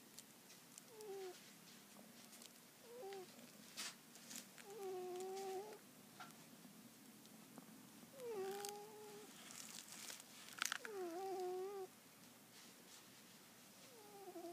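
A sleeping pet snoring: about six whistling, pitched snores every two to three seconds, some short and some drawn out to about a second, with a few soft breathy snorts between them.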